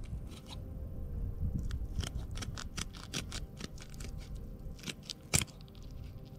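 Kitchen shears snipping down either side of a skinned Coturnix quail's backbone: a run of short, sharp clicks as the blades close on the bone, densest around two to three seconds in, with one louder snap a little after five seconds.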